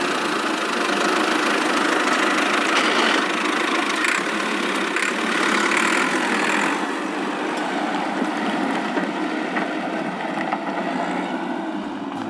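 Vehicle engine running steadily with a rough, noisy sound, a little softer in the second half.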